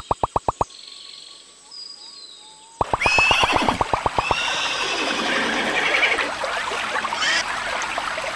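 Horse whinny sound effect about three seconds in: a high call over a fast pulsing shake that turns into several seconds of noisy, rough sound. Just before it, a fast even train of clicks stops shortly after the start.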